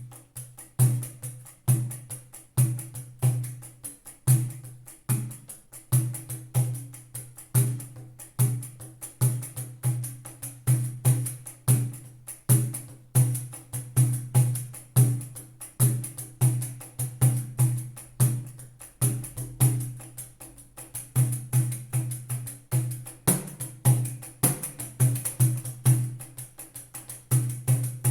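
Pandeiro played in a steady rhythmic pattern: thumb strokes on the head give deep, booming tones and fingertip strokes give mid tones, with the metal jingles sounding high above on every stroke.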